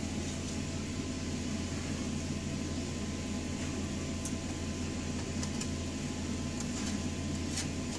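Steady low machine hum, with a few faint light clinks of a metal spoon against a stainless steel mixing bowl and metal baking sheet as cookie dough is scooped out.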